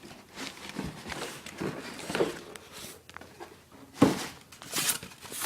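The airsoft rifle's box and its packaging being opened and handled: irregular rustling and scraping with small clicks, and a sharp knock about four seconds in.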